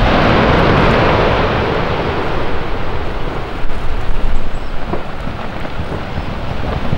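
Anak Krakatau volcano exploding: a sudden blast, then a continuous rushing noise from the ash jet, loudest in the first second and then easing. A few faint sharp cracks come later.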